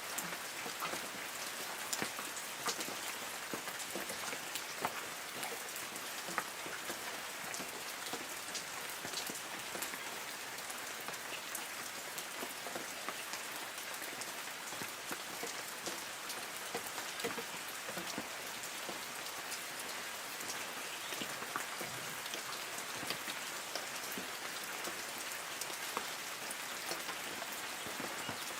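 Light rain falling on the leaves of forest trees: a steady hiss with many small, scattered drop ticks.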